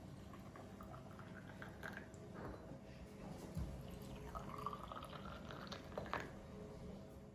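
Liquid being poured, with a brief rise in pitch a little after the middle as if a vessel fills, among small clicks and knocks of handled objects.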